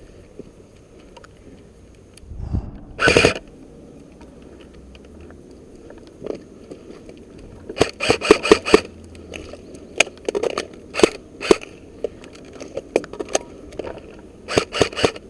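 Airsoft guns firing: a quick full-auto burst about three seconds in, then strings of rapid sharp shots around eight seconds, again from about ten to twelve seconds, and three more near the end.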